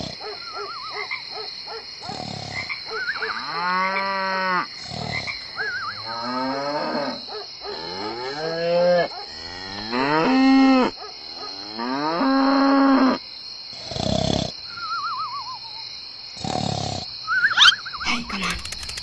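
Cows mooing: about five long, drawn-out moos one after another, over a steady high-pitched background tone.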